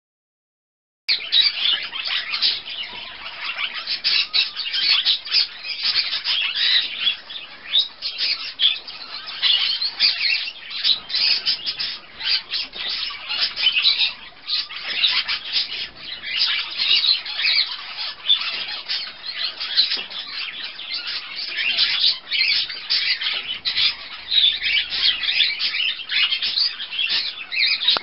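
Budgerigar chattering and warbling without a break: a rapid stream of high chirps and short squawks that starts abruptly about a second in.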